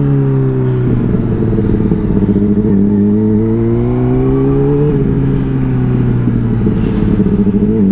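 Honda CBR600RR's inline-four engine under way. The revs climb steadily for about four seconds, drop sharply at a gear change about five seconds in, then hold fairly steady.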